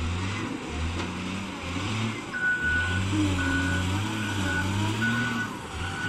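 Diesel engine of a log-handling wheel loader running under load, its pitch wavering slightly as it manoeuvres. About two seconds in its reversing alarm starts, a high beep repeating a little more than once a second.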